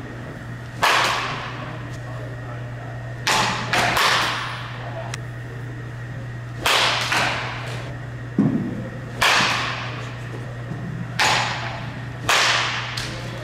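A series of sharp cracks from a wooden baseball bat hitting pitched balls, a few seconds apart, some followed within about half a second by a second smack. Each crack rings on briefly in a large hall over a steady low hum.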